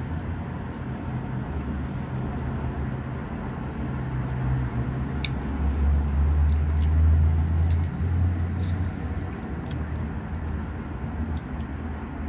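A steady low rumble, swelling louder about six to eight seconds in, with faint small clicks and smacks of someone eating with their fingers.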